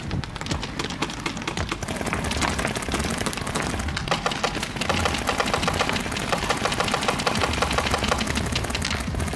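Many paintball markers firing at once in rapid strings of shots, a dense run of overlapping pops that gets heavier about two seconds in.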